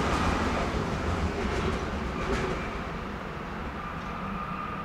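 Train running past on the tracks, a steady rumble that dies away over the first few seconds.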